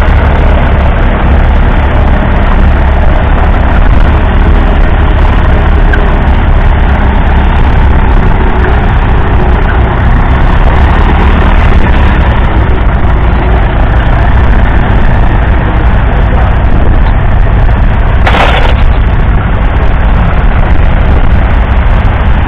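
The 3.1-litre four-cylinder diesel engine of a 1970 Zetor 4511 tractor runs steadily under load while pulling a plough through the soil. There is a brief hiss near the end.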